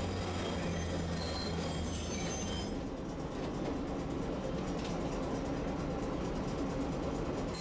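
Tosaden streetcar running along street track, heard inside the car: a steady rumble of wheels and running gear. A low hum and faint high whine die away about two and a half seconds in.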